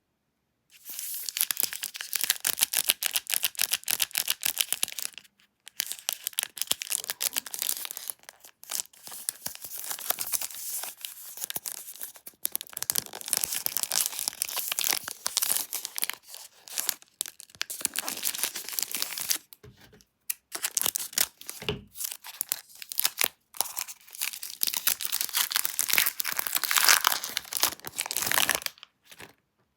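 Milka chocolate bar wrapper being torn open and crinkled by hand: dense crackling and tearing with a few short pauses. It starts about a second in and stops shortly before the end.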